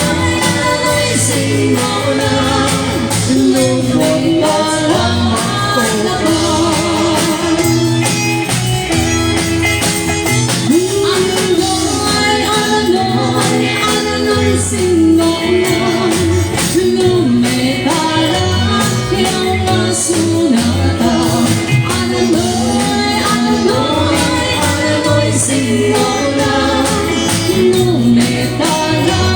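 Band music with a singer carrying the melody over bass and a steady beat.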